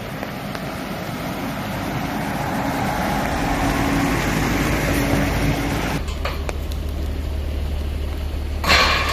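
Heavy Volvo lorry driving past on a wet road, its engine and tyre noise building as it comes close. From about six seconds in a steady low hum takes over, with a short loud rush near the end.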